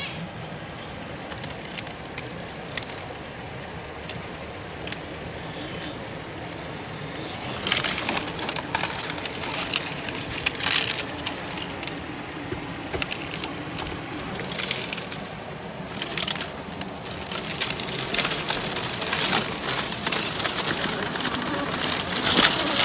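Axial SCX10 III Jeep CJ-7 RC rock crawler clambering over boulders: tyres and chassis scrabbling, knocking and scraping on rock and crunching dry leaves. The clicks and scrapes come thick and fast from about a third of the way in.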